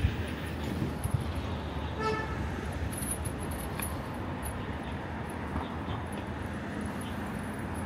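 Street ambience from a moving bicycle: a steady low traffic and road rumble, with one short horn toot about two seconds in.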